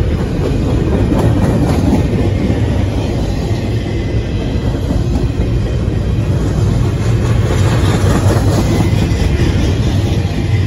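Double-stack intermodal well cars rolling past on the rails, a steady rumble and clatter of steel wheels, swelling a little twice as cars go by.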